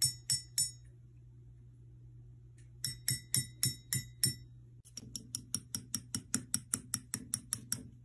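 A conure tapping ceramic mugs with its beak: sharp clinks, each with a short bell-like ring. Three taps come at the start, six about three a second midway, then a faster run of about five a second on a second mug with a different ring. A low steady hum runs underneath.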